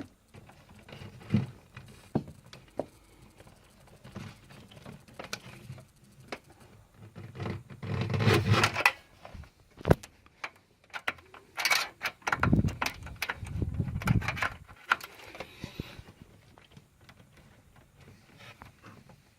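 Computer cables and connectors being handled and unplugged: scattered clicks and knocks with rustling, and two longer bursts of scraping and rustling about eight and twelve seconds in.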